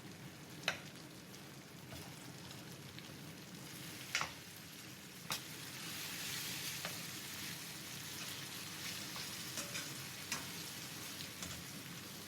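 Bitter gourd and spice masala with tamarind sizzling in a cooking pot as it is stirred, with a few sharp knocks of the stirring spoon against the pot. The sizzle grows louder about halfway through.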